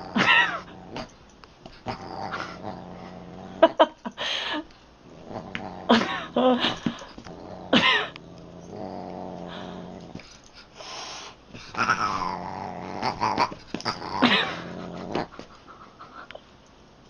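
A Siamese cat and a dog play-fighting, the cat boxing at the dog's face: a string of growls and yowling calls, some sliding down in pitch, with short pauses between them.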